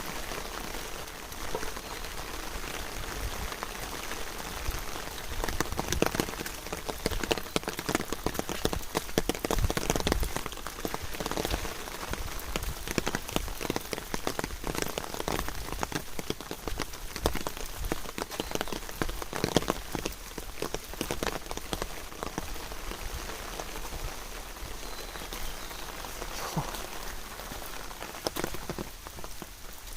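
Rain falling steadily, with many close drops tapping sharply in quick, irregular succession.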